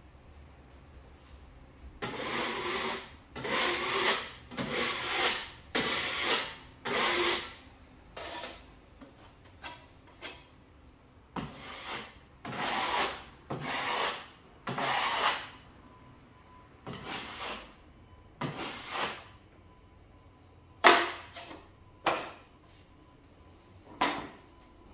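Steel drywall broad knife scraping as it spreads a coat of setting plaster across a drywall patch. Quick strokes come in runs of several, each under a second, then grow sparser with pauses between them.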